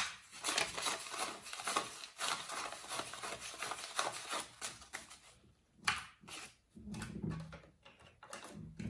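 Paper banknotes rustling and crackling as a stack of dollar bills is counted and handled, with a couple of sharp clicks, one at the start and one about six seconds in.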